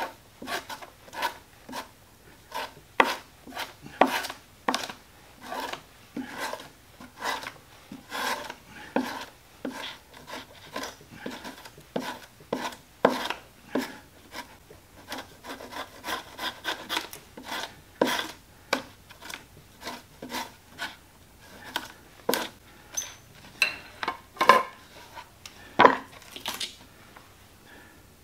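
Repeated short scraping strokes of a hand-held leather-working tool shaving down the end of a leather belt on a wooden board, thinning it for a glued joint. The strokes come unevenly, about one or two a second, and stop shortly before the end.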